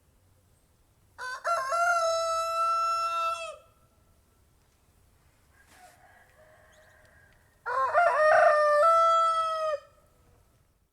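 A rooster crowing twice, each crow a long cock-a-doodle-doo with a stepped opening and a long held final note; a fainter call sounds between them.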